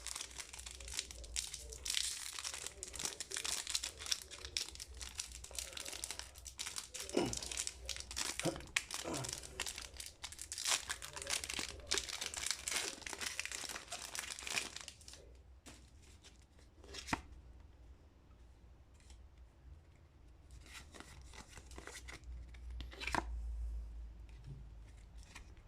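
Foil Pokémon booster pack wrappers being torn open and crinkled for about fifteen seconds. Then comes quieter handling with a few light clicks, and a short rustle near the end.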